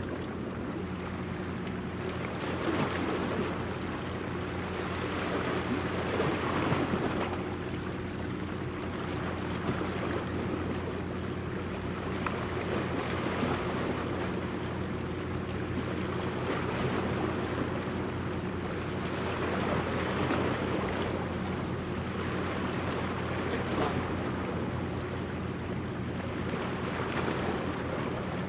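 Steady low engine hum of the passing helicopter destroyer JS Kaga, whose gas turbines drive it, under a rush of wind and water that swells and eases every few seconds.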